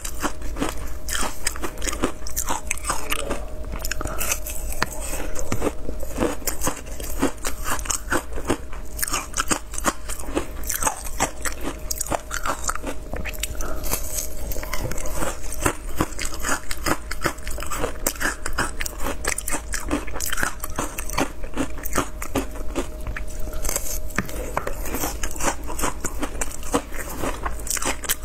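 Frozen matcha ice being bitten and chewed close to the microphone: a continuous run of crisp crunches and cracks as the ice breaks between the teeth.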